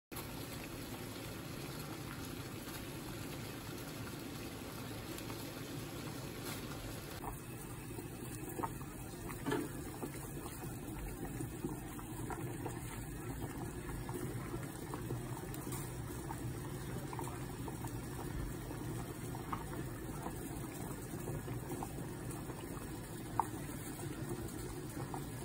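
Pot of water at a rolling boil with pork back bones in it: a steady bubbling hiss, with a few light taps, the sharpest near the end.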